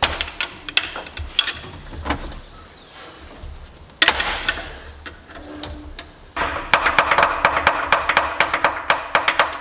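Brass hammer tapping the crankshaft timing gear to shock it loose from the crank: scattered taps, a harder blow about four seconds in, then a quick run of taps, about five a second, with the metal ringing under them.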